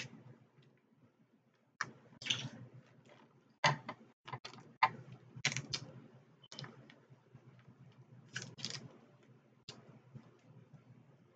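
Crab-leg shells being cracked and snapped apart by hand: a string of sharp cracks and clicks, several in quick pairs, with softer handling noise between.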